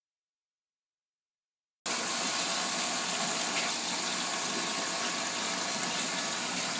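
Silence for almost two seconds, then a steady rush of water in an aquarium, churned at the surface, starting suddenly.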